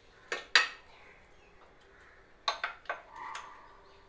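Plastic spoon knocking against a nonstick pan while a chicken mixture is pressed flat: two sharp clicks about half a second in, then a quick cluster of three or four more around three seconds in, one with a brief ring.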